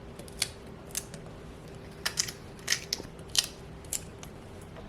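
Kitchen knife slicing okra into rounds on a cutting board: sharp, uneven chops, roughly one or two a second.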